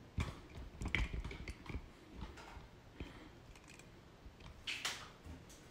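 Handling noise from a phone held in the hand: scattered light clicks and rubs of fingers on the body and microphone, the sharpest about a second in and again near the end.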